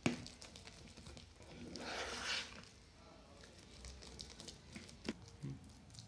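A metal spoon stirring a thick, grainy milk-powder, condensed-milk and curd mixture in a bowl: soft squishing and scraping, with a click of the spoon on the bowl at the start and two more about five seconds in.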